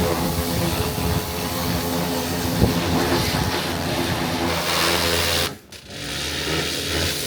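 A motor running steadily with a low, even drone, dropping out briefly about five and a half seconds in.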